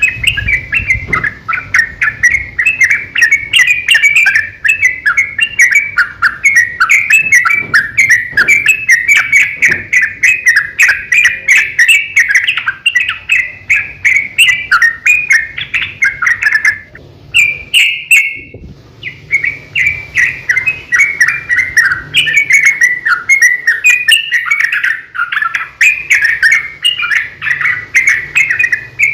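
Yellow-vented bulbul singing in long, rapid runs of chirping notes that barely pause, broken by one short gap a little over halfway through.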